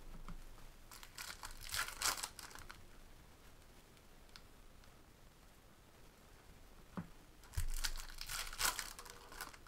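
Foil wrappers of Topps baseball card packs being torn open and crinkled by hand, in two bouts of crackling: about a second in and again near the end. A low thump comes just before the second bout.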